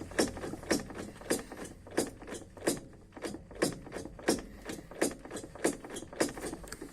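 Manual gearbox of a Sens car knocking: sharp, repeated knocks about every two-thirds of a second, with fainter ones between, over a low vehicle hum. It is a gearbox knock that has newly started and is heard while driving when shifting gears.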